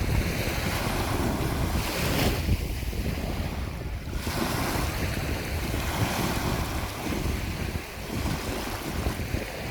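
Sea waves washing onto the shore in a storm, with strong wind buffeting the microphone. A wave's hiss swells about two seconds in.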